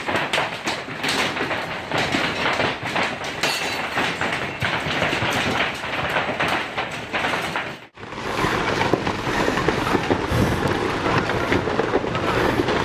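Hailstones pounding in a dense, fast clatter of many impacts. About eight seconds in it cuts off abruptly, giving way to a steady noisy rush.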